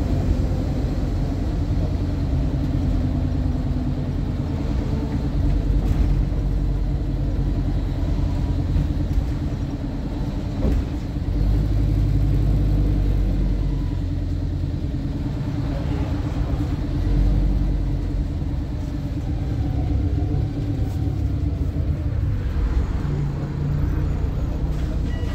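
Volvo B7RLE single-decker bus's six-cylinder diesel engine running, heard from the rear of the passenger cabin: a deep, steady rumble whose pitch rises and falls as the bus pulls and eases off, with a few short knocks from the body.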